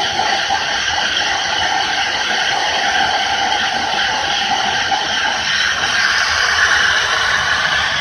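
Small electric fan of a homemade suction device running at full speed, a steady whine over a rush of air as it holds a plastic cup against its intake by suction. About five seconds in, the whine shifts higher.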